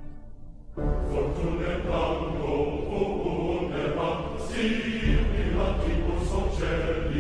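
A dense mass of many voices starts about a second in, with a heavy low rumble underneath that swells again about five seconds in.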